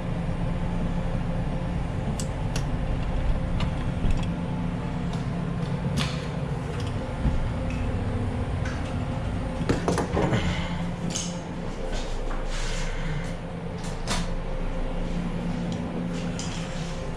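Scattered clicks and a short metallic clattering of a door knob and lock being worked by hand, about ten seconds in, over a steady low hum.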